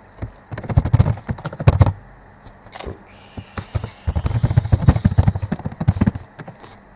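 Typing on a computer keyboard: two quick runs of keystrokes, with a pause of a second or so between them.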